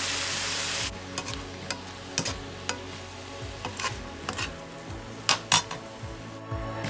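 Shrimp and vegetables sizzling loudly in a hot pan, the sizzle stopping abruptly about a second in. Then a metal spatula scrapes and clacks against the pan as the shrimp, cabbage and celery are stirred, with the two loudest knocks near the end.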